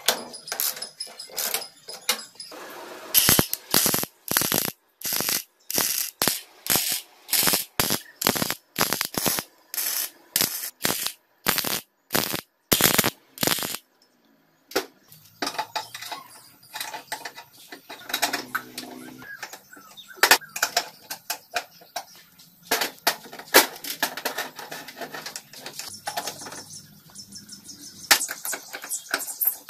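Ratchet wrench clicking as nuts are tightened, then a regular run of short, loud crackling bursts from a stick-welding arc tacking steel brackets. The rest is scattered small metal clicks and taps from hand tools on the gear-lever linkage.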